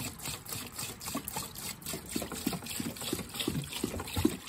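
Phosphoric-acid metal prep poured from a plastic jug into a plastic tote over a steel hood hinge, splashing. From about a second in, the jug glugs in short regular pulses, two or three a second.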